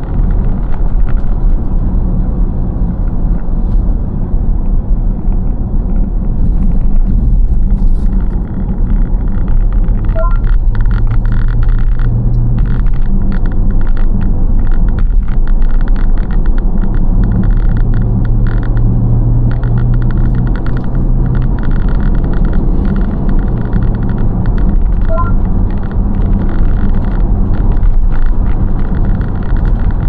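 Car cabin noise while driving at a steady speed: a continuous low rumble of tyres and engine, the engine drone swelling a little twice.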